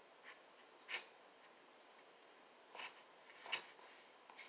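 Faint scrapes of an ice cream scoop digging into hard-frozen ice cream in its carton: four brief strokes with near silence between them.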